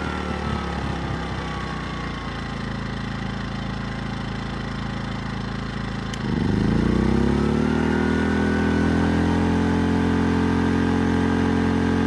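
Westinghouse iGen 2000 inverter generator's four-stroke engine running at a lower speed, easing down over the first few seconds. About six seconds in it revs up sharply and holds at a higher, louder speed as the 1500-watt heat-gun load comes on.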